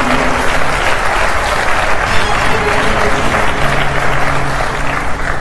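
Studio audience applauding for a correct answer, over sustained game-show music.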